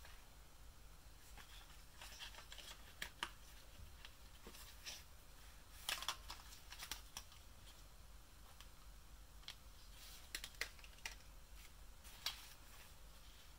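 Faint, scattered clicks and light taps of plastic toy doctor-kit pieces being handled, coming in a few small clusters.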